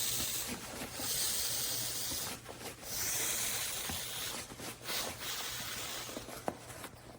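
Air hissing out through the open valve of a self-inflating foam camping pillow as it is rolled up to deflate it, coming in about three surges with each push of the roll, with soft rustling from handling the pillow.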